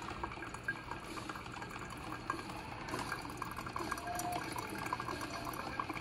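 Drip coffee maker brewing hot apple-cranberry cider: liquid trickling and dripping into the glass carafe, with many small irregular pops.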